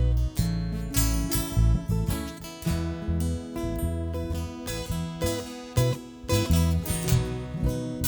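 Acoustic string-band instrumental break: acoustic guitar strumming chords over plucked bass-guitar notes.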